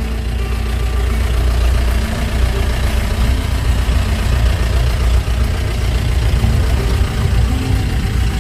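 Safari jeep's engine running steadily as it drives along a dirt track, heard from inside the cab as a low, even rumble.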